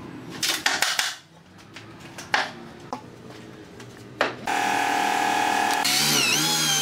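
A few knocks of wooden parts being handled. About four and a half seconds in, an electric drill starts with a steady whine. Its pitch then wavers as a wide bit bores into a wooden board.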